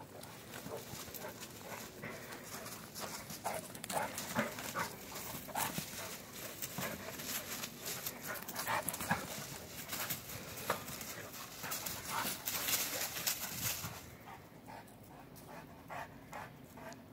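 A Saint Bernard and a Bernese mountain dog puppy playing: panting and scuffling, with scattered short noises, quieter from about fourteen seconds in.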